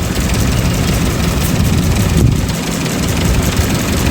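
Heavy diesel engine of earthmoving machinery running steadily with a deep rumble, which dips briefly about two and a half seconds in.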